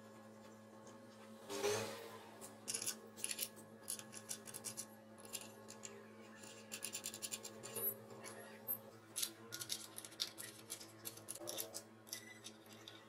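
Metal wing nuts and washers being spun by hand onto threaded bolts through a plywood panel: many quick, light metallic clicks and scrapes. A louder scraping knock comes about a second and a half in.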